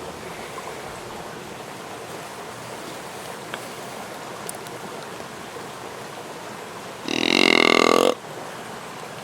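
Steady background hiss, then about seven seconds in one loud, buzzy whitetail deer grunt call blown for about a second, a hunter's call meant to draw a cruising rut buck.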